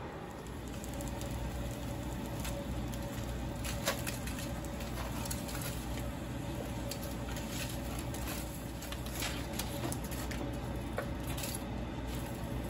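Whole tomatoes charring in aluminium foil on a stovetop griddle, sizzling and crackling with many scattered pops, over a steady low hum.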